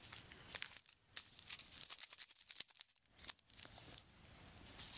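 Faint crinkling and tearing of drink-mix packets, hot chocolate and coffee, being handled and opened, with scattered sharp crackles and a quieter stretch in the middle.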